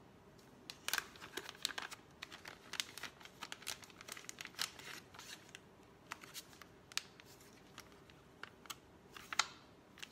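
Paper packaging crinkling and rustling as a black face-mask sachet is slid out of its paper envelope, in irregular crackles with the loudest near the end.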